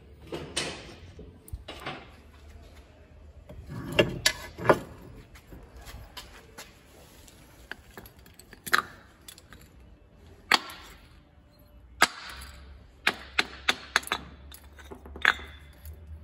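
Sharp metal clanks and knocks as a steel ingot mould and tongs are handled on a concrete floor: a loud group of knocks about four seconds in, a few single knocks after that, and a quick run of them near the end.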